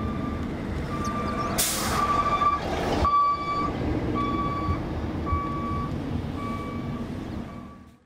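Car driving, with steady road and engine noise and an electronic beep repeating about once a second. A short loud hiss about a second and a half in as a trolley bus passes close by; the sound fades out at the end.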